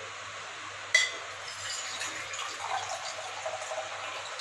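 Water poured from a steel tumbler into a bowl of green chutney liquid, splashing steadily for the last three seconds. About a second in there is a single sharp tap, the loudest sound.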